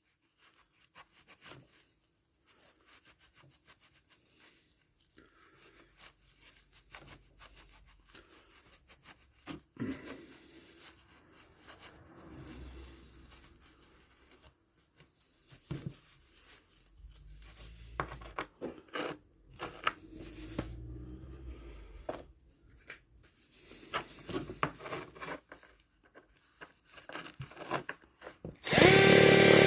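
Intermittent rubbing with small clicks and knocks as chrome nuts are hand-polished with Autosol metal polish. Near the end an electric drill starts up and runs steadily at speed.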